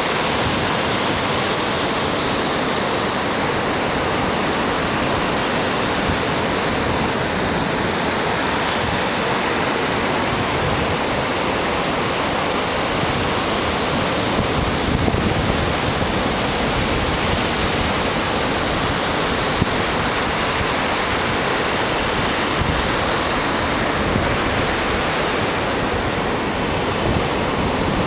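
Pacific Ocean surf breaking and washing up the sand, a steady rush of noise.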